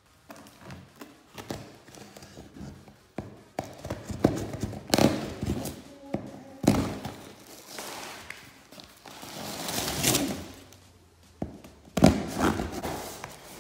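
A cardboard shipping box being cut open: a knife slitting the packing tape, with irregular scraping and rustling of the cardboard and thumps as the box is handled, the sharpest thump near the end.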